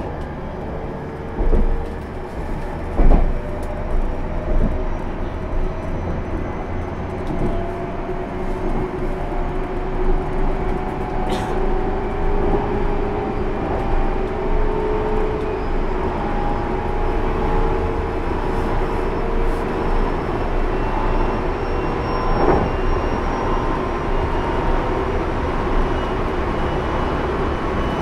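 JR Central 373 series electric train heard from inside motor car KuMoHa 373-13 while running: a steady rumble of wheels on the rails, with a motor whine that climbs slowly in pitch. A couple of knocks come in the first few seconds.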